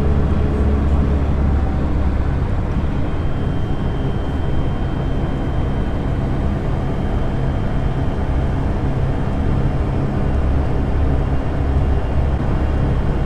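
Lada Niva cabin noise at steady motorway cruising speed: a constant low drone from the engine and drivetrain, with a faint high whine from about three to eight seconds in, the gearbox whistle typical of the Niva.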